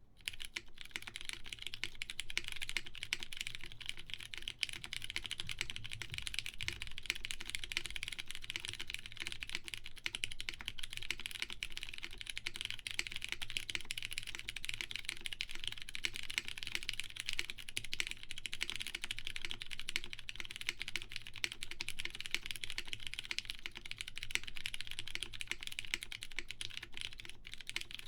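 Continuous fast typing on a plateless mechanical keyboard with lubed Cherry MX Brown tactile switches and GMK keycaps: a dense, even stream of muted keystroke clacks.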